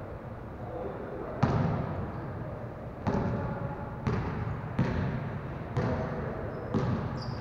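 Basketball bouncing on a hardwood gym floor as it is dribbled, roughly one bounce a second, each bounce echoing in the large hall.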